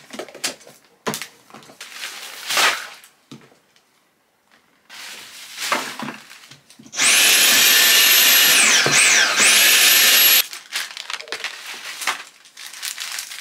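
Knocks and clatter of small containers and bottles being handled and set down. Then a vacuum cleaner runs for about three seconds, loud, with a high motor whine that dips in pitch and comes back up before it cuts off suddenly.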